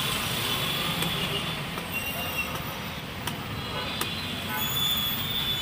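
Steady street traffic noise, with a high thin whine that fades within the first second and two sharp clicks a little past halfway.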